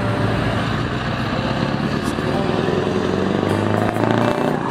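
Scania V8 truck engine running through loud exhaust pipes, a steady low drone as the rig moves slowly, dipping briefly near the end.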